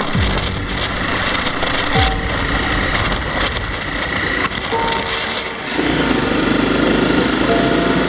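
Honda CRF250L's single-cylinder four-stroke engine running as the bike is ridden, with two short drops in pitch near the start. The sound becomes fuller about six seconds in.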